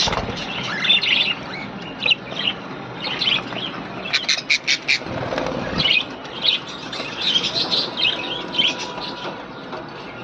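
Many small birds chirping and squawking in short bursts, with a quick run of sharp calls about four seconds in.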